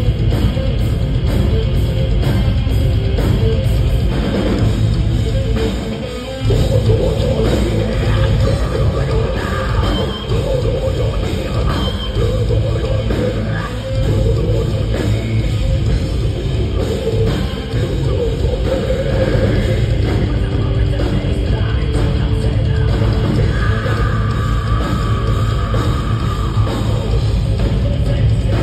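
Heavy metal band playing live through a PA: distorted electric guitars, bass and drums, with a brief break about six seconds in.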